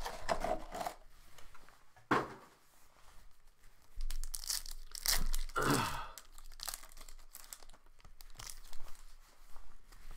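Panini Contenders football card packaging being torn open and crinkled: several separate rips and rustles, the longest and loudest about halfway through.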